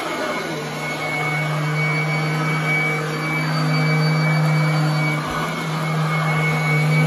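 Royal commercial upright vacuum cleaner running as it is pushed back and forth over carpet: a steady motor hum with a high, screaming whine over it, the loudness swelling and dipping a little with the strokes.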